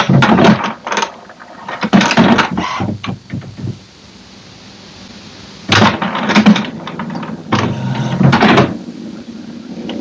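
HP Smart Tank 580 inkjet printer's internal mechanism whirring and clunking in four bursts of about a second each, with pauses between, as it runs a level 1 printhead cleaning.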